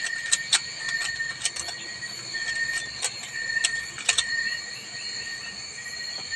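Plastic layers of a Rubik's cube clicking as they are turned, in quick irregular bunches of clicks, against a steady high-pitched drone.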